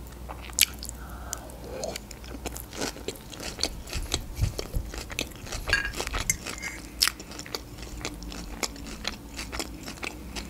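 Close-up chewing of Caesar salad made with napa cabbage: moist, crunchy bites with many small crackles and clicks.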